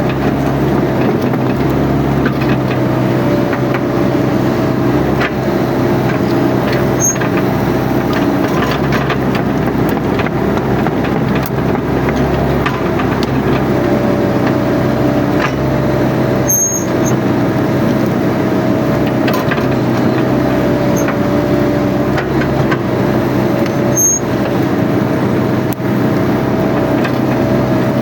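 Mini excavator's diesel engine running steadily under working load, with a whine that dips slightly in pitch and comes back up a few times as the machine works.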